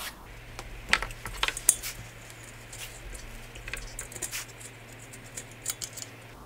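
Small metallic clicks and scrapes of a 4 mm Allen key turning screws out of a diesel heater's metal housing, with a few sharp ticks in the first two seconds and lighter ones later as the screws are spun out by hand. A faint steady low hum runs underneath.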